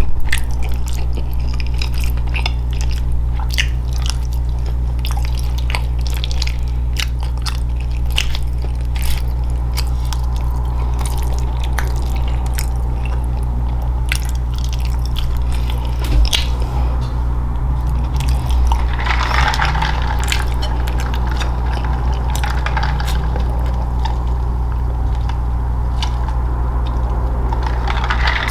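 Close-miked chewing and wet mouth sounds of someone eating, with many small clicks and crackles, over a steady low electrical hum.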